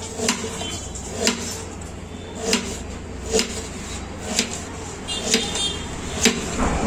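Knife slicing a red onion on a steel plate, the blade clicking down onto the metal about once a second, over a steady low hum.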